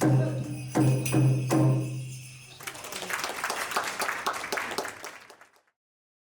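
Native American dance music: a few drum strikes over a low held tone, then about three seconds of rapid jingling and rattling. It cuts off abruptly about five and a half seconds in.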